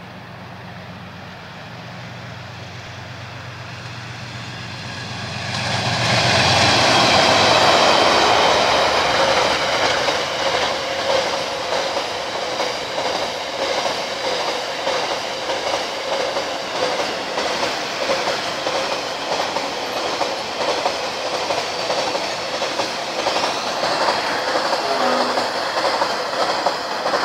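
Coal train passing close by: the diesel locomotive's engine drone grows as it approaches and is loudest as it goes past about six seconds in. A long string of coal wagons then rolls by with a steady clickety-clack of the wheels and a faint high ringing from the wheels.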